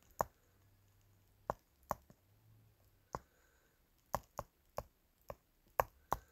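Stylus tip tapping on a phone's glass touchscreen while writing by hand: about ten short, sharp clicks at irregular intervals.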